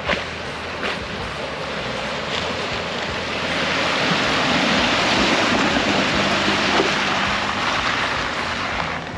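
Water splashing and rushing as an AEV ZR2 Bison pickup drives through a creek crossing. The sound swells to its loudest around the middle and eases off near the end.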